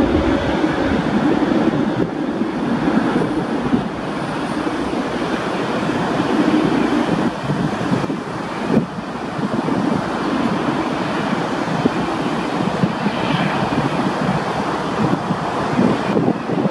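Boeing 737-800's twin CFM56-7B turbofan engines at takeoff thrust during the takeoff roll: a steady, rumbling rush of jet noise heard from beside the runway.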